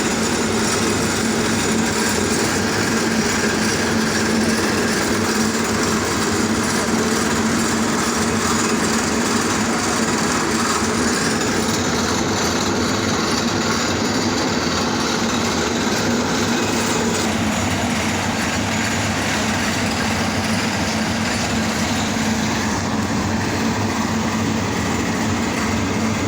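Road-repair machinery running steadily with a constant engine hum, shifting slightly in tone about two-thirds of the way through.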